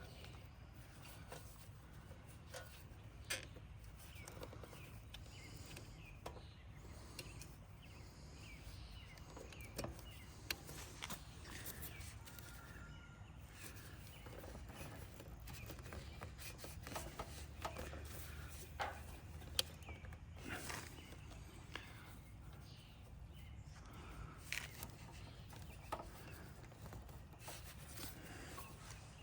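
Faint, scattered clicks and light knocks of hand tools and small parts being handled while working on a generator's carburetor, over a low, steady outdoor background.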